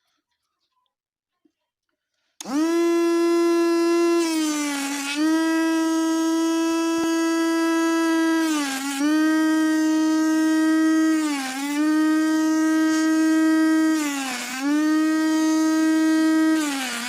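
Small DC motor of a homemade mini mixer grinder starting up about two seconds in and running with a loud, high, steady whine. Its pitch dips briefly and recovers about every three seconds.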